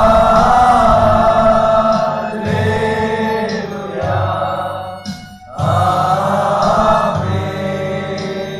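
A group singing a Christian devotional song over keyboard backing with a steady beat, in two long phrases with a short break about five seconds in.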